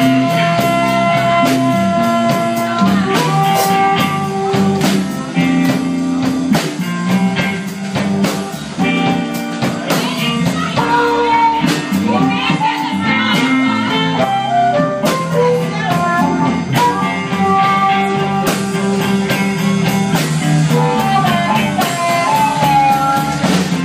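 Live blues band playing: an amplified harmonica played into a cupped microphone carries the lead with long held and bending notes, over electric guitar, bass and a drum kit.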